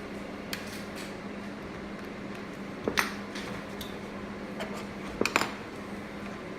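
Plastic screen bezel of a Dell 7567 laptop snapping into place: a few sharp clicks as its clips catch, loudest about three seconds in and a quick pair just after five seconds, over a faint steady hum.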